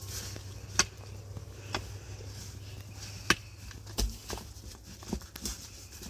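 A series of sharp knocks or strikes at irregular intervals, the loudest about a second in and past the middle, over a low steady hum.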